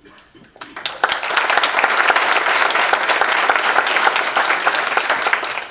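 Audience applauding: a few claps that swell into full, steady applause about a second in, then die away near the end.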